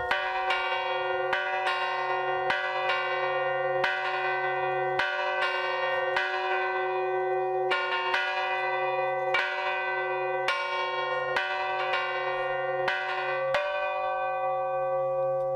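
Church bells in an open belfry ringing, struck over and over at about two strokes a second, each stroke ringing on under the next.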